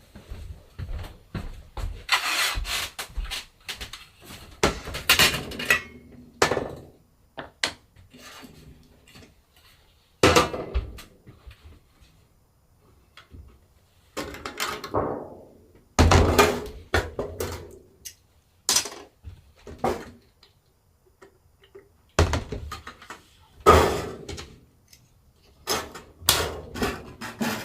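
Irregular knocks, clacks and short scraping sounds of tools and equipment being handled and set down on a workbench during silkscreen screen-making, with loud clusters about two, five, ten, sixteen and twenty-three seconds in.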